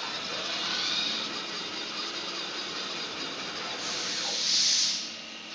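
Multi-spindle CNC router running with a steady machine hiss. About four seconds in there is a louder burst of high hiss, about a second long, which cuts off abruptly.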